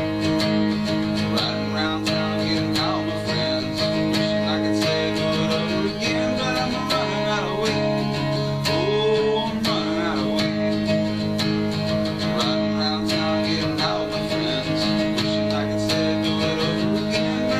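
Steel-string acoustic guitar strummed steadily in chords, with a man singing over it.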